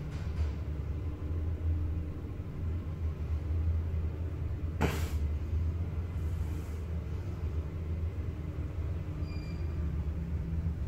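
Schindler electric traction passenger lift travelling between floors, heard from inside the car: a steady low hum and rumble of the ride, with one sharp click about five seconds in.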